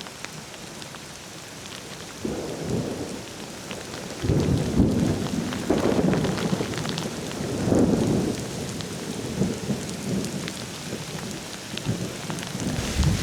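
Steady rain falling, with a long roll of thunder rumbling in about two seconds in, swelling in surges to its loudest about four to eight seconds in, then easing.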